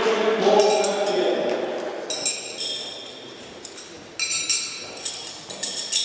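Metal throwing knives clinking against one another in short, high, ringing chinks, coming in close pairs about four times.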